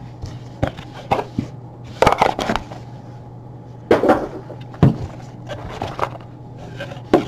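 Small cardboard trading-card boxes handled and set down on a table: a series of short knocks, taps and scuffs, with a steady low hum underneath.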